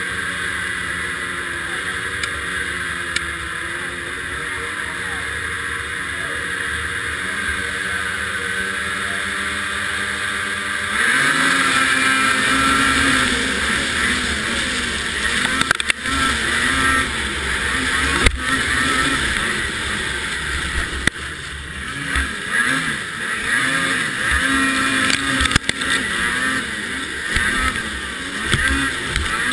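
Racing snowmobile engines idling steadily at the start line, then at about 11 seconds opening up to full throttle at the start. After that the onboard sled's engine revs rise and fall as it races over the snowcross track, with a few sharp knocks.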